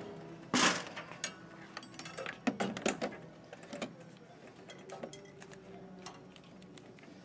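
Handling noise from an MP6200 scanner-scale being fitted: plastic housing parts knocking and clicking, loudest a little over half a second in, with several more clicks in the next few seconds and then lighter scattered ticks.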